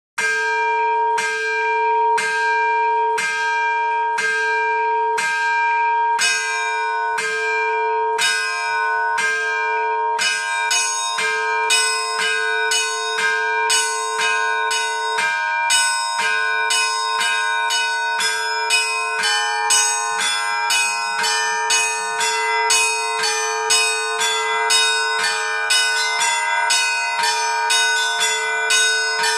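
Seven Orthodox church bells rung by an automatic electronic bell-ringing system in the Easter peal. For about the first ten seconds they strike about once a second over the ringing of the deepest bell; after that the smaller bells join in a faster, busier chime.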